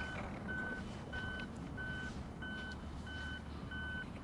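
An electronic warning beeper sounding steadily, short single-pitch beeps about one and a half a second. A second, fainter, lower-pitched beep joins in near the end.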